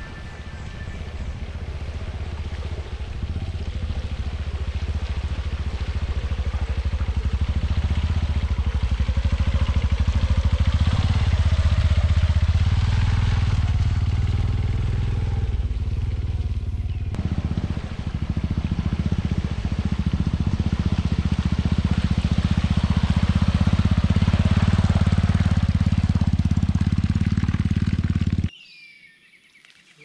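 Motorcycle engine running as the bike rides through wet, grassy ground, growing louder over the first several seconds; the sound cuts off suddenly near the end.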